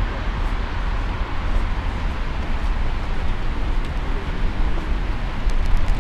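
Steady city street noise: motor traffic going by, with a deep, even rumble underneath.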